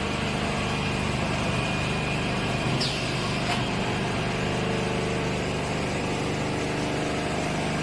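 Automated duvet quilting and cutting line running steadily: a constant machine hum with steady low motor tones, and a brief faint squeak and click about three seconds in.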